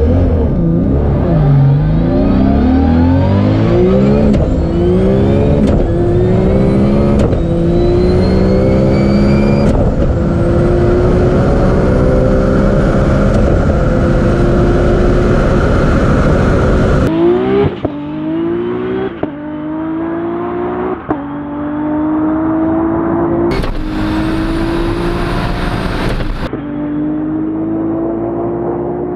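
Turbocharged 2.9-litre VR6 engine of a tuned VW Golf Mk3 at full-throttle acceleration. The revs climb and drop sharply at each of a string of quick upshifts, then make a long steady pull in a high gear. Partway through, the sound changes from in-car to thinner, as heard from beside the track, with more climbs and shifts.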